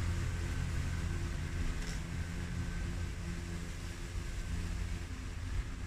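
Ryobi 40V brushless cordless push lawn mower running steadily while cutting grass: an even hum over a low rumble.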